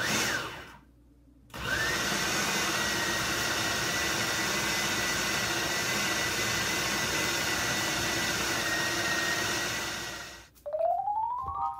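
Food processor motor blending cream cheese and shredded pepper jack cheese. It stops briefly about half a second in, then runs steadily with a high whine for about nine seconds before winding down. Near the end a rising tone leads into music.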